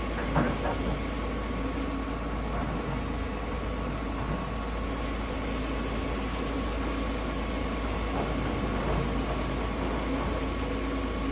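A heavy vehicle engine running steadily, with a constant hum over a deep low rumble.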